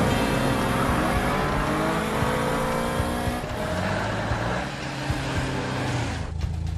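Cartoon car engine sound effects: engines running and revving, their pitch gliding up and down. Near the end it settles into a steadier low hum with a regular pulse.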